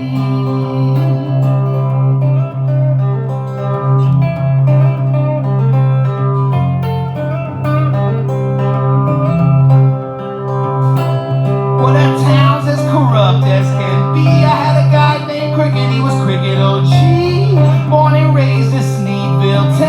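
Live country-blues music: acoustic guitar over a steady bass, with no words sung. About twelve seconds in, a higher lead line with bending notes comes in over it.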